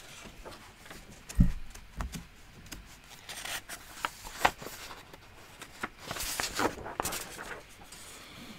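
Quiet room tone with scattered small clicks and rustles, and a soft low thump about a second and a half in.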